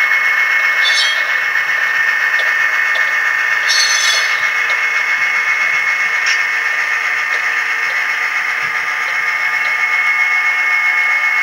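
Soundtraxx Tsunami Soundcar decoder in an HO-scale covered hopper, playing rolling-wheel noise through its small speaker as the model train runs, with short flange squeals about a second in, around four seconds in and about six seconds in.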